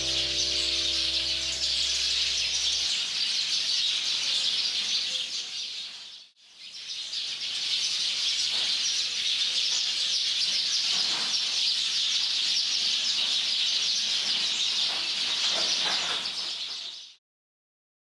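A large flock of maya birds chirping together in a dense, continuous chorus. This is the flock gathering at its bamboo roost. The chorus dips out briefly about six seconds in and stops suddenly near the end.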